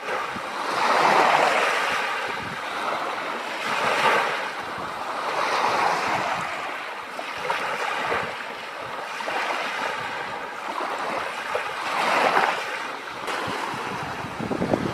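Small waves washing onto the shore of the Sea of Azov, the surf hiss swelling and fading every few seconds, with wind buffeting the microphone.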